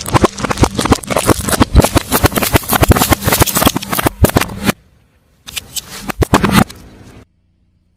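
A car tyre crushing crunchy objects: a dense run of crackling and snapping, then after a short break a second, shorter burst that stops abruptly.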